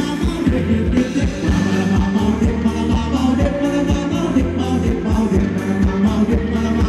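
Live band playing upbeat Thai ramwong dance music, with a steady drum beat under a singer.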